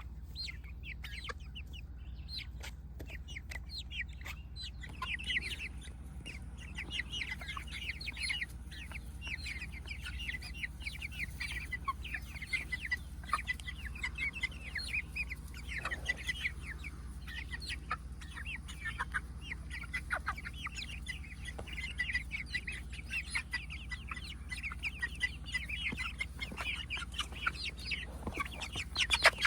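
A flock of chickens clucking and chirping continuously, with many short, high calls overlapping, over a steady low rumble.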